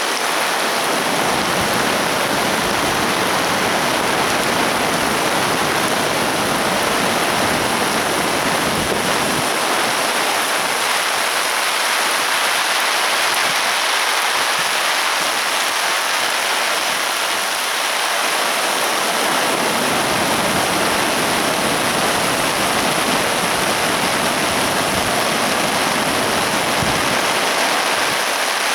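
A river in flood after heavy typhoon rain, its swollen water rushing in a loud, steady roar.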